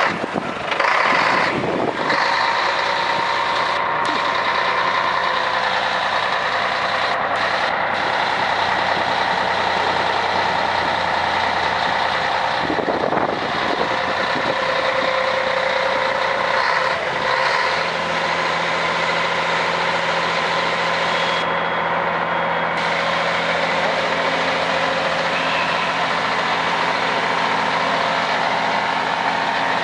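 Scania K113 TL coach's diesel engine running loud at idle just after starting, a steady heavy drone; a little past halfway its note settles into a lower, even hum.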